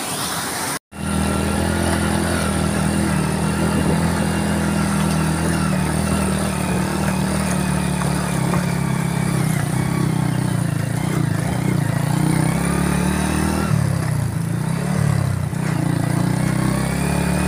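Motorcycle engine running steadily as the bike rides along, its pitch wavering briefly near the end. Before a short cut about a second in, water runs over rocks.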